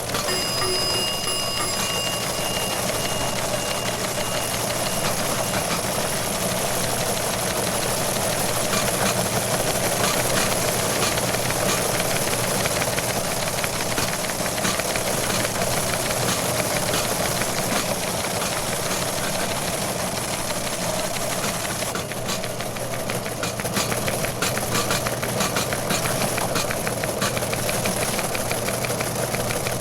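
A machine or engine running steadily with a fast, even knocking beat; about two-thirds of the way through, the knocks stand out more sharply.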